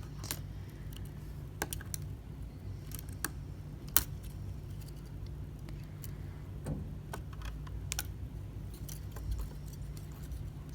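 Scattered small clicks and taps from tools and parts as an iPhone XR's brackets and connector cables are unclipped, with one sharper click about four seconds in, over a steady low hum.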